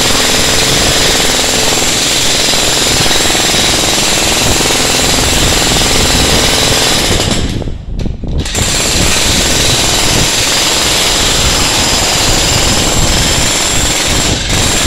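Ryu RDH 50 electric demolition hammer running continuously, its chisel pounding into a reinforced concrete floor slab. It drops out briefly about eight seconds in, then starts hammering again.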